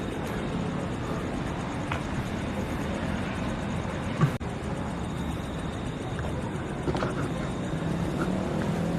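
Steady hum of road traffic passing on a nearby road, with a single short knock about four seconds in.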